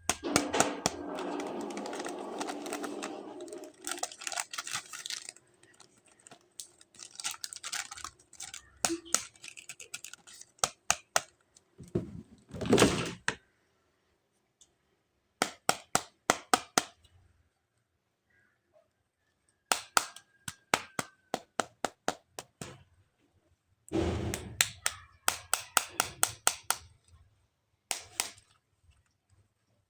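Close-up clicking, tapping and crinkling of plastic toy parts and packaging being handled. There are quick runs of sharp clicks several times a second, with a longer crinkly rustle near the start and another about halfway through, and short silent gaps between.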